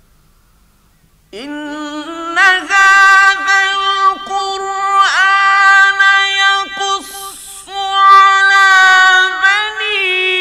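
Male Qur'an reciter chanting in the melodic mujawwad style. He enters about a second in after a silent pause and holds long, high notes with ornamented turns between them, with a short breath partway through.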